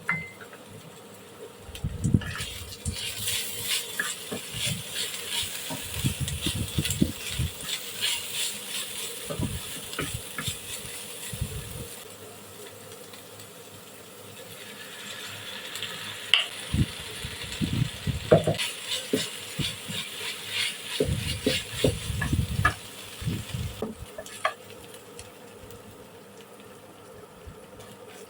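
Food sizzling in a frying pan while a spatula stirs and scrapes it, with many small clicks and knocks of the utensil against the pan, in two spells of about ten seconds each.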